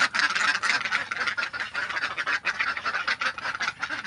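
A flock of domestic ducks quacking in a rapid, continuous chatter, many birds calling at once.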